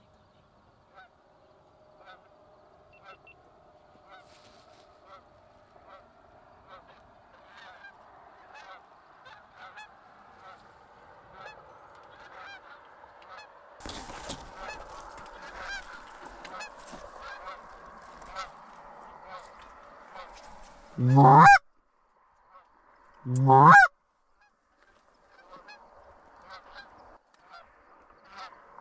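A distant flock of Canada geese honking, many overlapping calls that slowly grow louder. Near the end come two loud, close honks about two and a half seconds apart, each sweeping steeply up in pitch.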